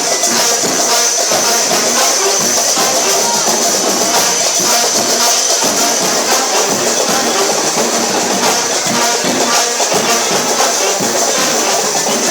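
Loud, steady music with shaken and struck percussion keeping a beat.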